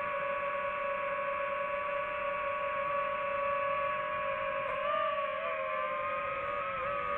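DJI FPV drone's motors and propellers whining in flight: a steady hum with several overtones that wavers in pitch a few times about five seconds in.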